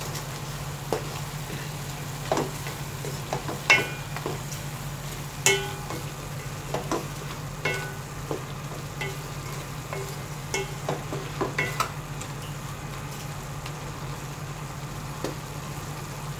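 Wooden spatula stirring chicken and shrimp in a stainless-steel wok, with irregular knocks and scrapes against the metal over a faint frying sizzle and a steady low hum.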